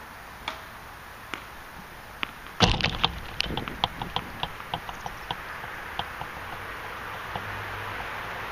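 A loud knock close to the microphone about two and a half seconds in, jolting the camera, followed by a quick run of lighter clicks that space out and fade. A few single sharp clicks come before it, over a steady outdoor hiss.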